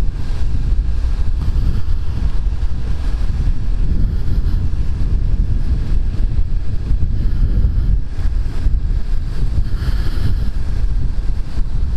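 Wind buffeting a microphone inside a motorcycle helmet while riding a Suzuki SFV650 Gladius on wet roads: a loud, steady low rumble of wind and road noise, with a brief swell of hiss about ten seconds in.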